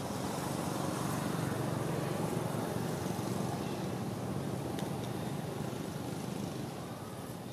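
A vehicle going by: steady engine and road noise that swells in the first second and slowly fades away.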